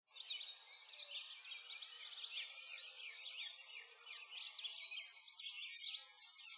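Many small birds chirping and twittering at once: a dense chorus of quick, high calls, overlapping throughout, with nothing low beneath them.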